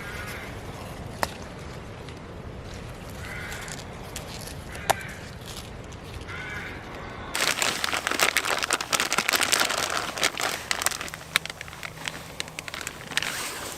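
About four short, harsh bird calls, caws, over a quiet woodland background, then from about halfway loud rustling and crackling footsteps through dry leaf litter and twigs that ease off near the end.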